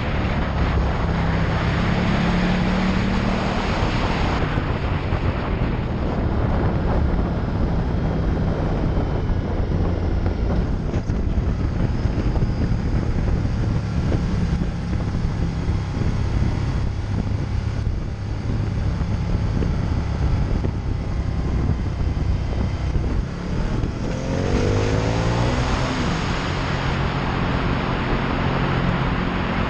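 Ducati Multistrada 1200 S Testastretta V-twin engine running under load at speed, heard onboard with wind rushing over the microphone. Late on, the engine note climbs steeply as the bike accelerates hard.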